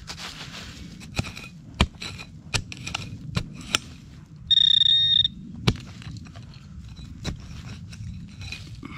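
Metal hand trowel digging into leafy forest soil: repeated sharp chops and scrapes with leaves rustling. About halfway through, a steady high electronic beep under a second long: a metal detector's target tone.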